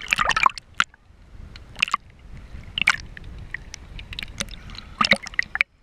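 Sea water sloshing and splashing against a camera held at the surface, with irregular crackling splashes and gurgling as it dips under the water.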